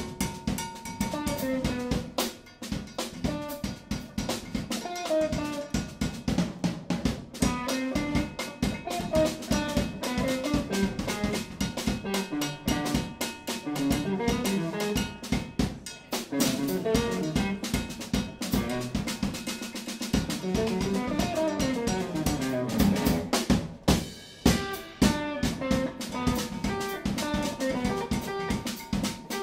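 Drum kit and electric guitar playing together live: busy drumming with many snare, rim and bass-drum strokes under a guitar line of short notes moving up and down.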